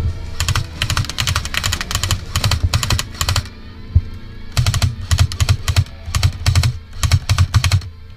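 Airsoft gun firing in two long runs of rapid, sharp cracking shots, each with a low thump, broken by a pause of about a second near the middle.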